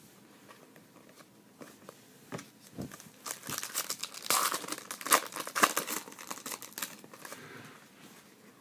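Foil trading-card pack wrapper being torn open, crinkling and crackling. The crackling starts about three seconds in, is loudest in the middle and dies away near the end, after a few light ticks of cards being handled.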